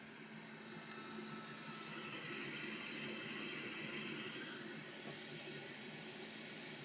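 Steady, faint hiss of air blowing from a hot-air rework station, swelling slightly about two seconds in and easing off near the end.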